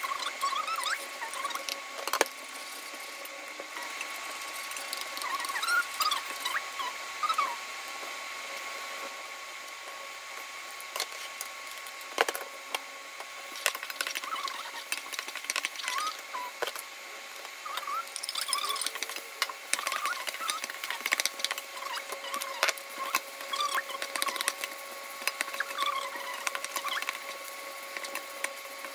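Garlic and onion, then rice, frying in a nonstick wok: a steady sizzle under frequent knocks and scrapes of a wooden spatula and rice paddle against the pan, with short squeaks. A steady high whine, typical of an induction cooktop running, lies beneath.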